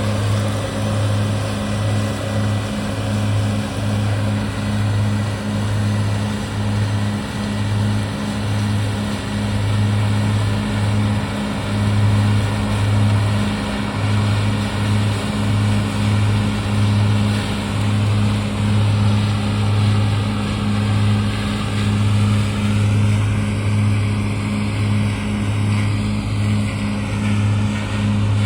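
Combine harvester running steadily while cutting soybeans: a continuous engine drone with a low, pulsing hum and a steady wash of machine noise.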